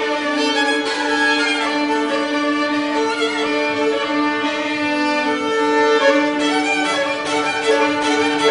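Three fiddles playing a Ukrainian Hutsul folk dance tune in unison and harmony over one steady held note.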